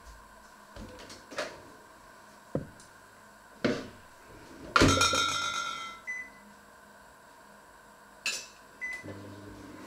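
Kitchenware clattering: a few knocks and clinks, then a loud metallic clang that rings on for about a second. Two short high beeps follow, one soon after the clang and one near the end.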